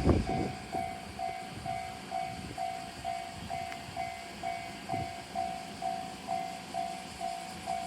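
Japanese railway level crossing warning bell ringing at a steady pace, about two dings a second, each a two-note electronic tone: the crossing is active and its barriers are about to come down. A low thump sounds right at the start.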